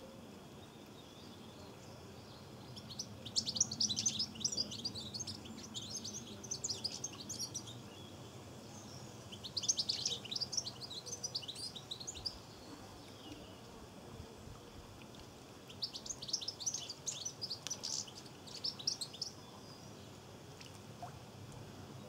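European goldfinch twittering: three bursts of rapid, high chirping notes, each a few seconds long, over faint background noise.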